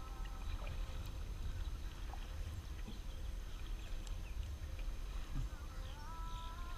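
Kayak paddling: a steady low rumble of wind and water on the low-mounted camera, with a few light knocks from the paddle and scattered short bird chirps. Near the end a faint pitched tone comes in, stepping between notes.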